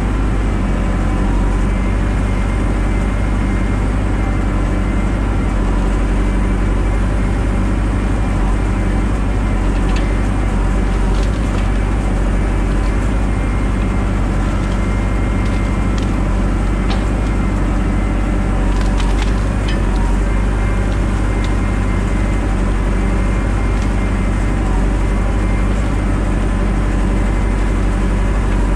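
Engine of a self-built crane wagon running steadily to drive its hydraulic timber crane as the grapple loads brush. Short cracks of branches snapping and breaking in the grapple come now and then, mostly in the middle stretch.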